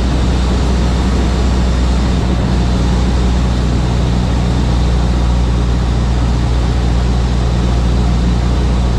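Cabin noise of a single-engine Cessna in flight: the piston engine and propeller give a loud, steady drone with a deep hum and a wash of wind and engine noise over it.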